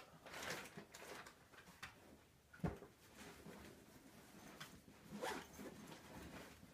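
Faint rustling and handling noises as items are moved about, with a single sharp knock about two and a half seconds in.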